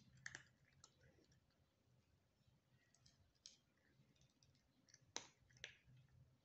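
A cat chewing dry cat kibble: faint, scattered crunching clicks, the two loudest a little after five seconds in.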